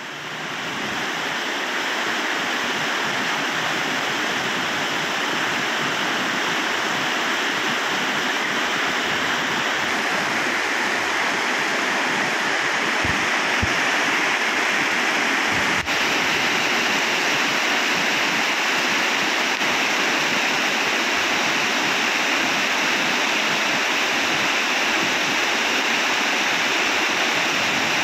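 Swollen, flood-fed stream rushing past in white-water rapids: a steady wash of water noise that swells up over the first couple of seconds.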